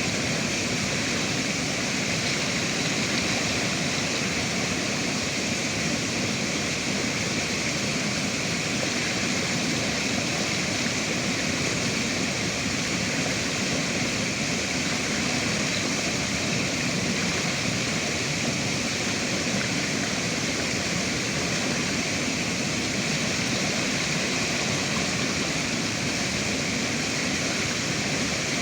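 Steady rushing of river water, an even, unchanging wash of sound.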